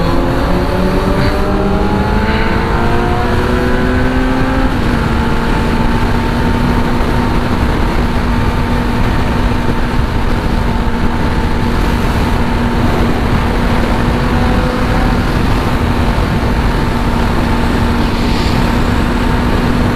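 Sport motorcycle engine pulling hard with its revs climbing for the first few seconds, shifting up about five seconds in, then running at a steady cruise. Heavy wind rush runs underneath throughout.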